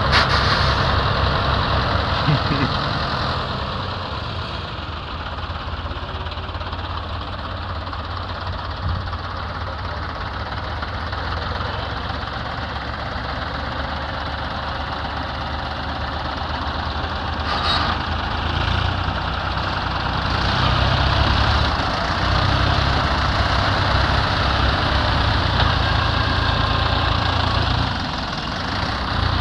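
Farm tractor diesel engines running under load, a low, pulsing rumble as they strain to tow a tractor bogged in mud; the engine note grows louder about two-thirds of the way through.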